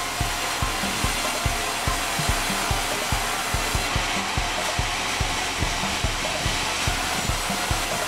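Sawmill band saw and its drive running with a steady whirring, under a regular low thumping about three to four times a second.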